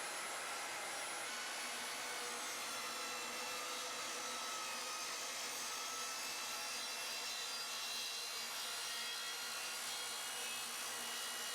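SawStop compact table saw running with its blade tilted past 45 degrees, being raised up through a new throat insert to cut the insert's zero-clearance slot: a steady whine with several high tones over an even rushing noise.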